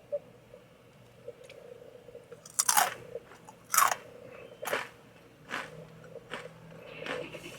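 Takis Intense Nacho rolled corn tortilla chips being bitten and chewed. Two loud crunches come about two and a half and four seconds in, then softer crunching chews follow roughly once a second.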